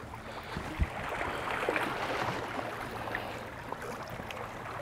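Small waves lapping and washing against the rocks, a steady splashy hiss, with a soft low knock under a second in.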